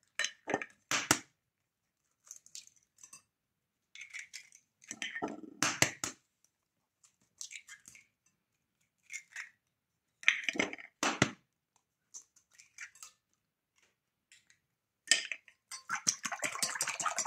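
Eggs cracked one after another on the rim of a glass bowl, with sharp knocks and the crunch of breaking shell coming in separate bursts. Near the end a wire whisk beats the eggs in the glass bowl with a fast, steady clatter.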